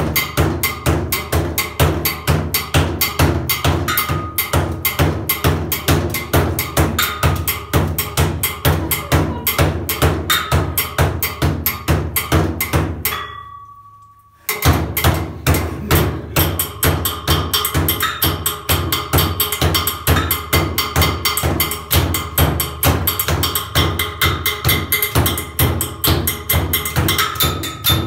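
Techno track with a steady, driving drum beat. About 13 seconds in the track fades out briefly, then drops back in sharply at full level about a second later.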